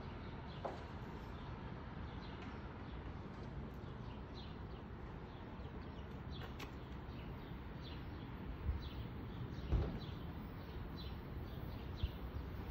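A bird calling over and over, short falling chirps about two a second, over a faint steady low background rumble.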